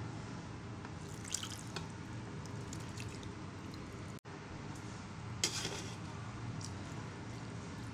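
Cooked beef pieces in gravy being spooned into a pot of part-cooked rice for beef tahari: wet dripping and a few short scrapes of the spoon against the pot, over a steady low hum.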